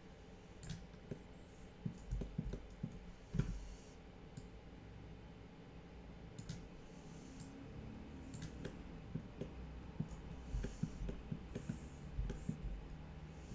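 Scattered, faint clicks from a computer mouse and keyboard, in irregular clusters with a few louder knocks.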